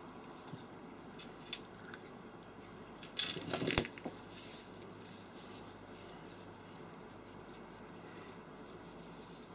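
A brief clatter of small hard objects, a quick run of clicks and rattles about three seconds in, with a few single clicks before it.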